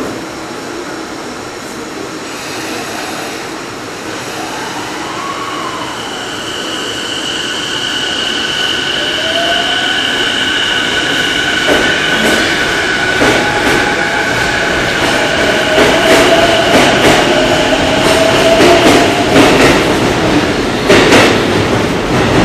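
Electric commuter train of the Keihin-Tohoku Line pulling out of the station, its traction motors whining in tones that rise in pitch as it gathers speed. In the second half the wheels clatter rapidly over rail joints as the cars run past, and the sound grows louder throughout.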